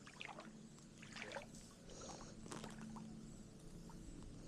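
Faint water trickling and lapping, with a few light short splashes.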